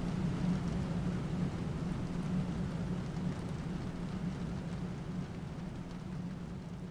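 Steady background rain ambience with a low hum beneath it, slowly fading out.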